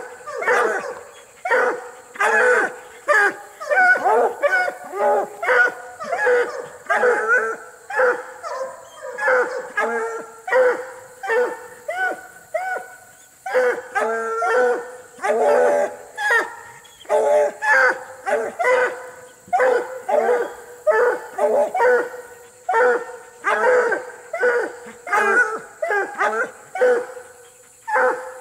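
Walker coonhounds barking and bawling, about one to two barks a second without a break, baying at a raccoon held in a wire cage.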